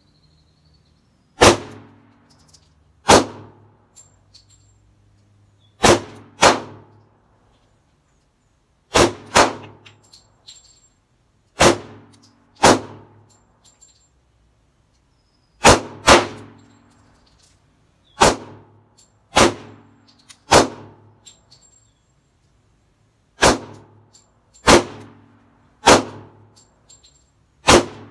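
Pistol fired at a 10-metre target from a Sarsılmaz handgun: about seventeen single shots at an uneven pace, some in quick pairs, others one to three seconds apart, each with a short echo.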